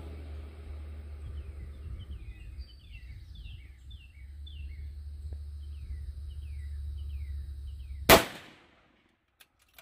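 A single shot from a 6mm Creedmoor bolt-action rifle about eight seconds in, cut off abruptly soon after. Before it, a bird calls with a run of short falling whistled notes over a steady low rumble.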